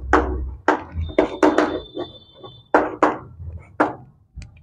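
Chalk tapping and scratching on a blackboard as words are written: a run of sharp, short knocks, about three a second, as each stroke lands.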